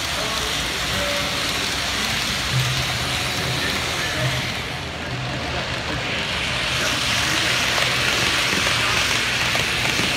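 Model trains running past on a layout: a steady hiss and rumble of wheels rolling on the track.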